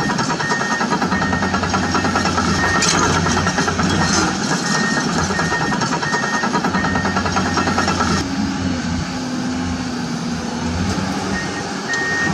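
Excavator engine sound: a low steady hum under a rapid clatter, with a high beep repeating about twice a second in short runs. About eight seconds in the clatter stops, leaving a steadier hum with a held tone.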